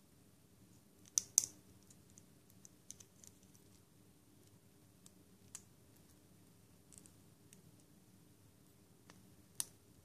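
Small plastic building-block pieces clicking and tapping together as they are fitted by hand: scattered light clicks, with two sharper ones about a second in and another near the end.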